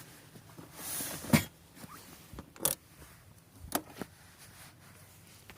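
Handling noises: a brief rustle, then three sharp clicks roughly a second apart.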